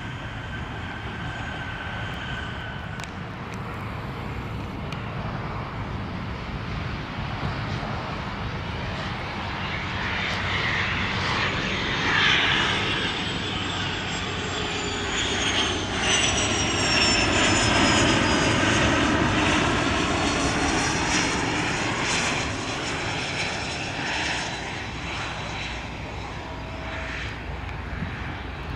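Jet airliner passing close by: its engine noise swells from about ten seconds in and is loudest through the middle. A high engine whine slides down in pitch as it goes past, then the noise eases off.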